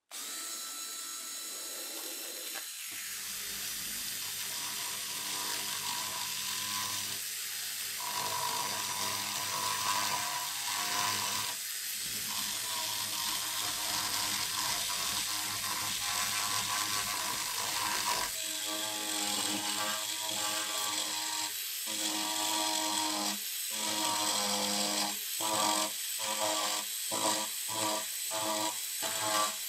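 A small handheld power tool's electric motor running steadily at high speed. In the second half its sound drops out briefly about once a second, coming quicker near the end.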